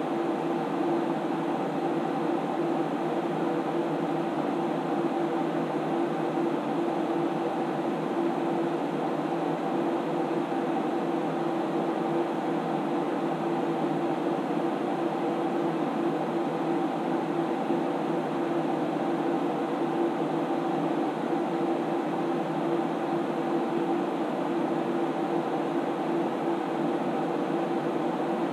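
SGI Onyx2 computer's cooling fans running steadily: an even whir with a constant hum of several fixed tones.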